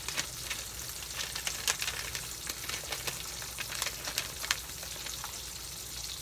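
Salted mackerel fillets frying in olive oil in a frying pan on low heat: a steady sizzle broken by many irregular crackles and pops.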